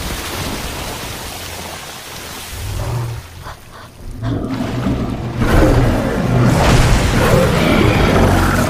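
Monster-movie soundtrack: a giant ape's roars and crashing water over dramatic film score, dipping briefly in the middle and growing loud from about five seconds in.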